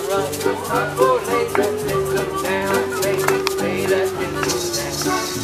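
Small acoustic band playing an old-time swing tune: a musical saw holds one long, nearly pure note over a walking upright bass and accordion, with a light rhythmic clicking.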